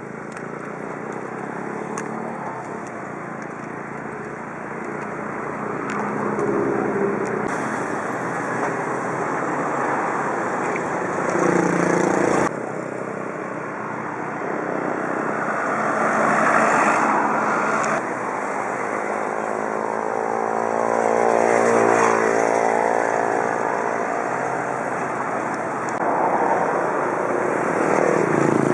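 Road traffic passing close by: cars and motorcycles going by one after another, each swelling up and fading away over a steady road noise.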